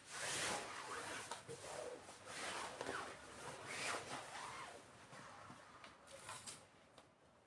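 Curtain being handled during repair, making a series of rustling, scraping strokes that die down in the second half.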